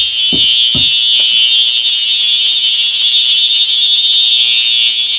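FCI HEF STW horn strobe, a rebranded Faraday three-tone unit set to its horn tone, sounding a loud, steady, continuous high-pitched horn. Two soft low thuds come within the first second.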